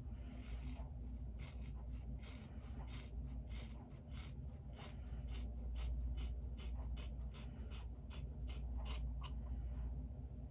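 Scissors snipping through hair: a run of short, crisp cuts, about three a second, that stops near the end. A steady low hum runs underneath.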